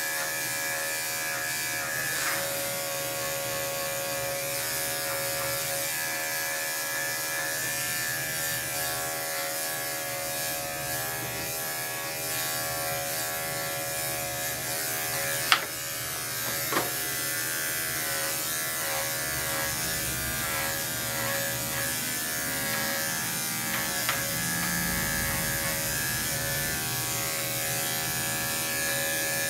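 Corded electric dog clipper with a guard comb running at a steady hum as it is pushed through a thick, fine coat. Two sharp clicks come about halfway through.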